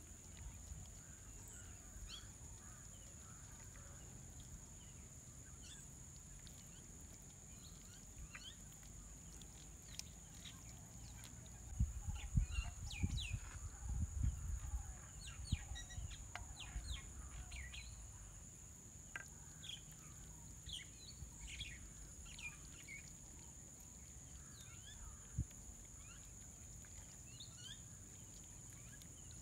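Outdoor ambience of many short bird chirps over a steady high drone, with a cluster of low thumps and rustles about halfway through.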